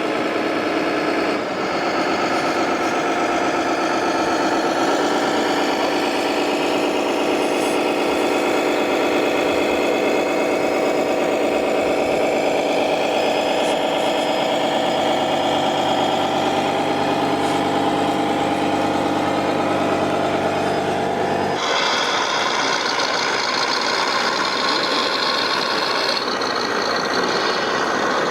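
Engine sound of RC model trucks, most likely their sound modules playing a diesel truck engine, running steadily. The tone changes abruptly a few times, about 5 seconds in and again near 22 seconds.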